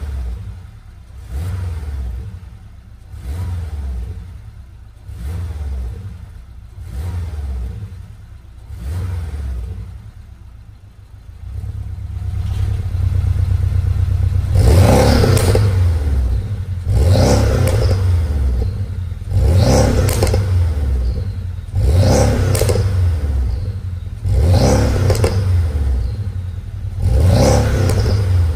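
Porsche 718 Cayman S turbocharged flat-four revved in short throttle blips about every two seconds through a Stone catback exhaust with Eddy catalytic downpipe, its valves closed. After about twelve seconds the valves open: the exhaust runs louder, and the revs that follow every two and a half seconds or so are fuller and sharper.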